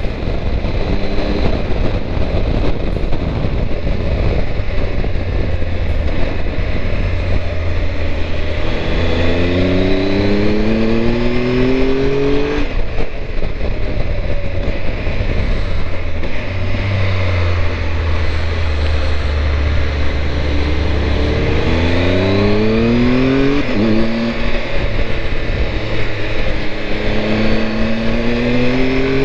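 Triumph Tiger 1200's three-cylinder engine pulling up through the gears. Its pitch rises and breaks off at a gear change about a third of the way in, and again near the end. Heavy wind rush comes from the lowered windscreen.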